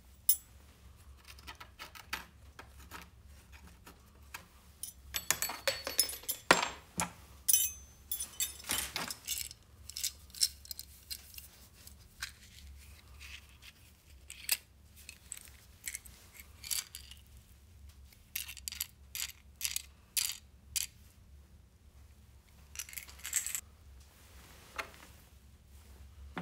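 Small metal fittings and loose screws clinking and jangling as they are handled and taken out of an old gramophone's wooden case, in irregular bursts of sharp clicks with a bright metallic ring, loudest a few seconds in.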